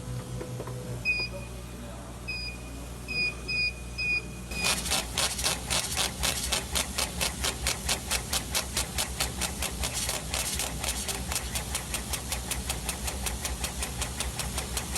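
CO2 laser engraving machine (GS7050, 80 W) with a steady hum from its fans and pumps. A few short electronic beeps sound early on. Then, from about four and a half seconds, the laser head shuttles back and forth in fast, regular strokes of about four a second as it raster-engraves.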